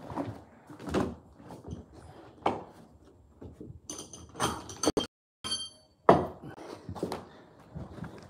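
Scattered knocks and thuds from metal carpet-fitting hand tools being handled, with a brief metallic ringing clink about four to five seconds in.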